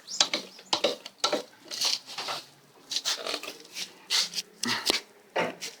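The kickstarter of a KTM 250 EXC-F four-stroke dirt bike being pushed through in short, stiff strokes to inch the engine round by hand: a string of short, irregular clunks and scrapes.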